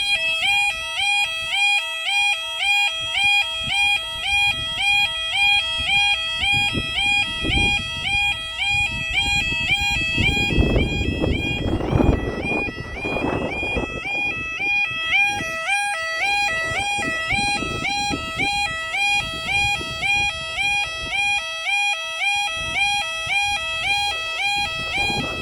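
Level crossing warning alarm sounding continuously: a warbling two-tone wail that steps between pitches several times a second. A louder rushing noise swells about ten seconds in and fades by about fourteen seconds.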